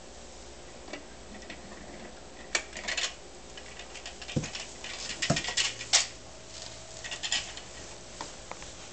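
Scattered light clicks and clatters of a small plastic toy car being handled, knocked and pushed on a tile floor by a crawling baby, with a couple of dull thumps about four and a half and five and a half seconds in.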